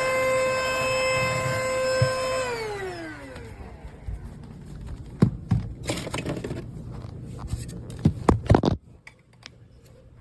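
Cordless handheld vacuum's motor running with a steady high whine, switched off about two and a half seconds in, its pitch falling as it spins down. Then a run of sharp clicks and knocks from the vacuum being handled.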